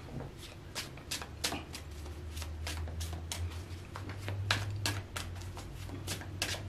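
Tarot cards being shuffled by hand: an irregular run of many quick, crisp flicks and snaps, over a faint low steady hum.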